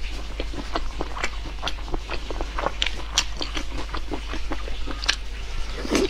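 Close-up chewing of chewy chicken heads: wet mouth clicks and smacks, several a second in an irregular rhythm.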